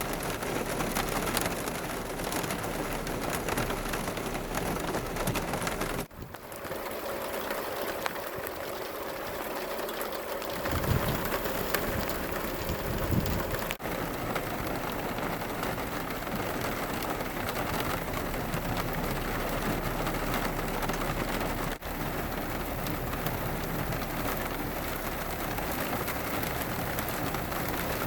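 Steady rain falling, an even hiss that changes abruptly a few times between clips. About halfway through, a few low rumbles sound under the rain.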